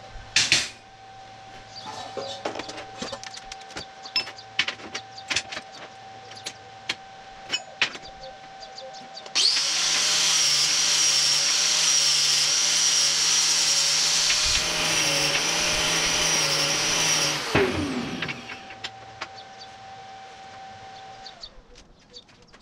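Steel parts clinking and knocking on a metal work table, then a handheld electric grinder runs for about eight seconds with a high whine and spins down with a falling pitch.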